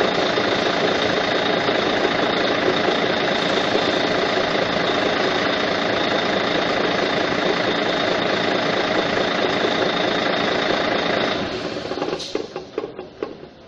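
Volvo D12D straight-six diesel idling with the cab tilted, with a noise at the front of the engine, then switched off about 11 seconds in and running down, with irregular knocks and rattles as it coasts to a stop. The mechanic traces the noise to play in the engine-driven fan, which wobbles out of balance.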